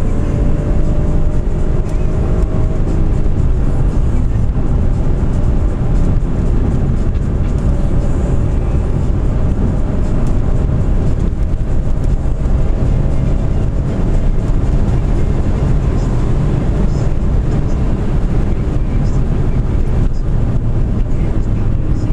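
Steady in-cabin road noise and engine note of a BMW M3 cruising at speed, a deep tyre and road rumble under an engine tone that rises slightly at times as it pulls.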